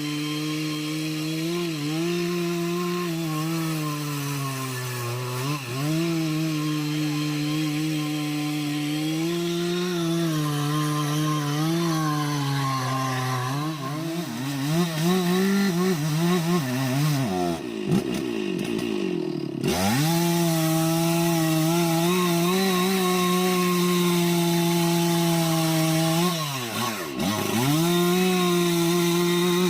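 Two-stroke chainsaw running at high revs and cutting into the wood of an aanjili (wild jack) tree, its pitch sagging as the chain bites. About two-thirds of the way in, and again near the end, the engine speed drops sharply and then revs back up.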